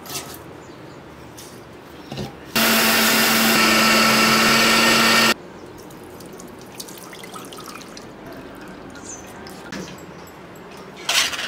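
Kitchen mixer grinder (mixie) running in one burst of about three seconds, grinding soaked ragi with water; it starts and cuts off suddenly. Around it, faint sounds of the ragi milk being poured through a steel sieve into a steel pot.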